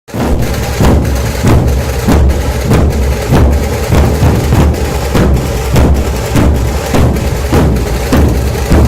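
Puneri dhol tasha ensemble drumming: deep booming dhol barrel drums under the dense, rapid stick strokes of the tasha, with heavy accents falling evenly a little under twice a second. It starts at full strength right at the beginning.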